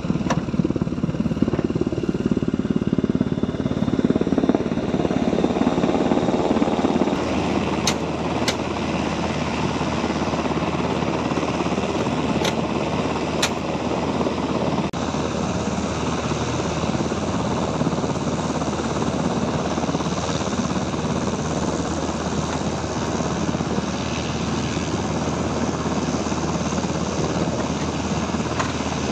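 Steady running noise of helicopter turbine engines, with a few short high clicks about eight and thirteen seconds in.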